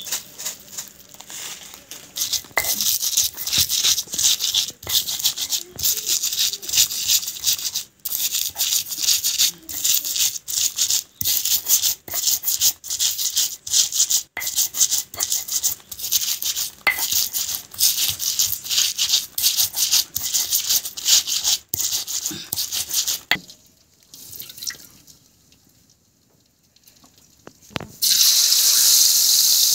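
Shallots, garlic and chillies with coarse salt being ground on a stone mortar, a fast run of scraping, crushing strokes that stops about 23 s in. Near the end the spice paste hits hot oil in a wok and sizzles with a loud, steady hiss.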